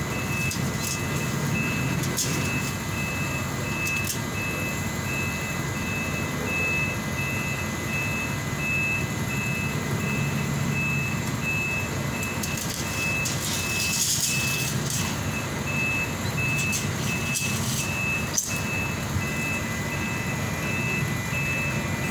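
A vehicle's reversing alarm beeping at an even pace over the low, steady rumble of a running engine, with a few short clicks in the second half.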